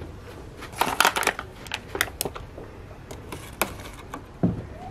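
Irregular light clicks and taps of hands handling toppings as black olives are laid onto a raw pizza, loudest in a quick cluster about a second in.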